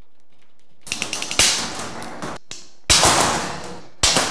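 Bolt cutters snapping through the steel wires of a wire shelf as it is cut to length: three sharp snaps about a second and a half apart, each ringing briefly, with a few light clicks just before the first.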